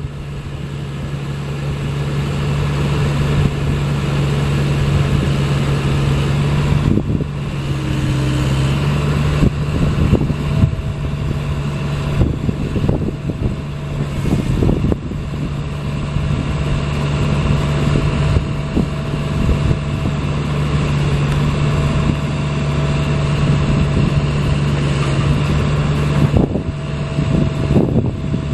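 Cat excavator's diesel engine running steadily, its note dipping briefly about eight seconds in, with a faint whine coming and going as the hydraulics are cycled during start-up procedures.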